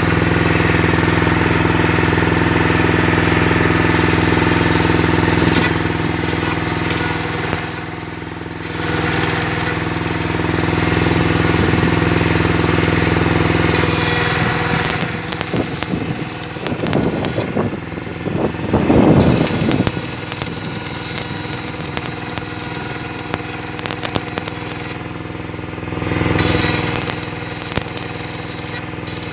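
A machine running loudly with a steady hum and hiss for about the first half, then a rougher, uneven rattling noise that swells twice.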